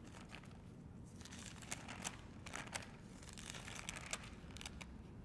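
Faint rustling and crinkling of thin Bible pages being flipped through, in short irregular bursts, while looking for a new chapter.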